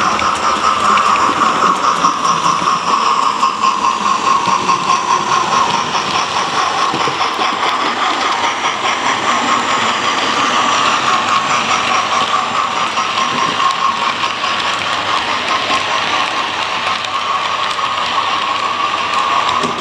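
Hornby TTS sound-fitted OO gauge model of the LNER P2 locomotive 2007 Prince of Wales running past with its coaches: a steady running sound of the model train on the track. A regular pulsing beat is strongest in the first several seconds.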